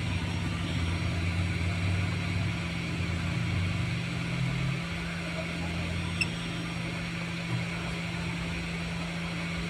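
Steady low electrical hum with fan-like noise from the repair bench, the rumble easing a little about five seconds in.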